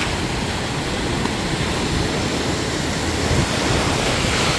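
Ocean surf breaking and washing ashore, a steady rushing noise, with wind buffeting the microphone as a low rumble.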